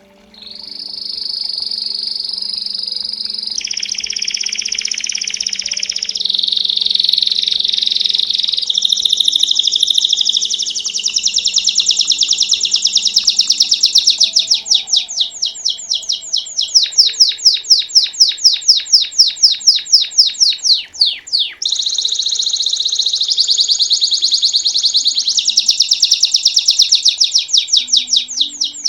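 Domestic canary of the type Brazilian breeders call 'canário belga' singing a long, loud song in the bell-like 'campainha' style: rolling trills and fast runs of repeated notes, starting just after the beginning, with one short break about two-thirds of the way through.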